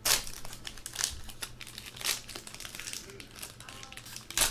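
Plastic wrapping of a sports-card box being crinkled and torn open by hand. Sharp rustles come near the start, about two seconds in and near the end, with lighter crackling between them.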